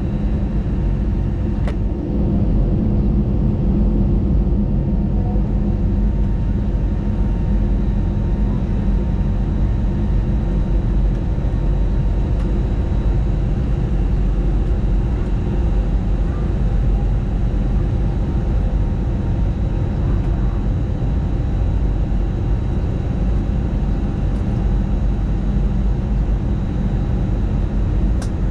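Airbus A321LR jet engine and airflow noise heard inside the passenger cabin during takeoff: a steady, loud low rumble with faint, even whining tones above it.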